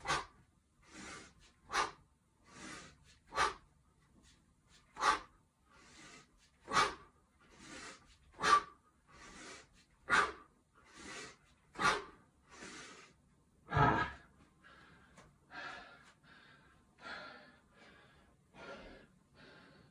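Heavy breathing from a man doing one-handed 24 kg kettlebell swings: a sharp, forceful exhale on each swing, about one every 1.7 seconds, with softer inhales between. About two-thirds of the way in there is a deeper thump as the set ends and the kettlebell is set down on the mat, after which the breathing turns into quicker, ragged panting.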